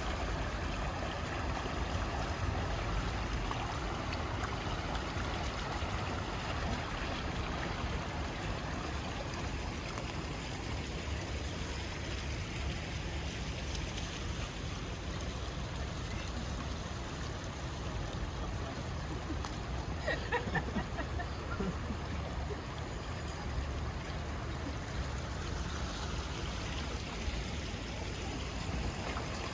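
Steady rain falling on wet city pavement, an even hiss of water with a low rumble beneath it. A brief high-pitched sound cuts in once about two-thirds of the way through.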